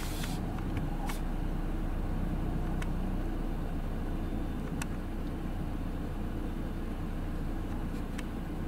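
A vehicle's engine running with a steady low hum, and a few faint clicks.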